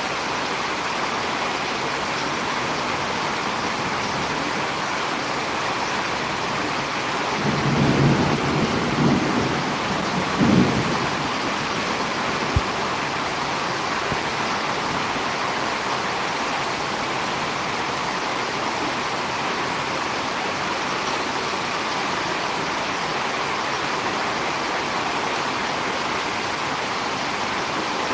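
Steady rain falling during a storm. About eight seconds in, a low rumble swells for roughly three seconds, and a single sharp click comes about twelve seconds in.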